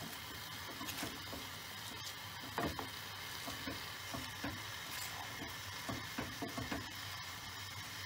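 A wooden spoon stirring and turning wet cibes greens in a pot, with irregular knocks and rustles of the leaves over a steady sizzle as they cook. One loud knock comes about two and a half seconds in, and a quick run of knocks near the end.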